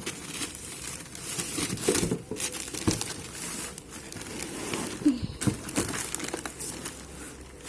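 Packaging crinkling and rustling continuously, with small crackles, as the parts of a ride-on toy car are unwrapped.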